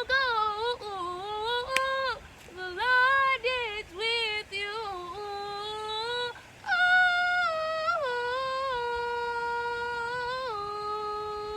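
A woman singing a gospel song unaccompanied, her voice sliding through short phrases and then holding long, steady notes over the last few seconds. There is a single sharp click about two seconds in.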